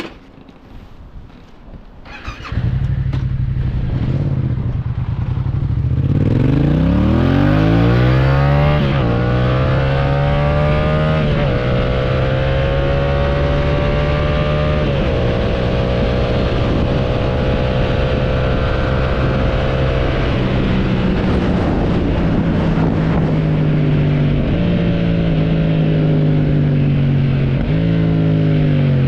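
Motorcycle engine starting after a few clicks, idling briefly, then accelerating through the gears. Its note climbs in pitch and drops back at each of about four shifts, settles into a steady run, then revs up again near the end.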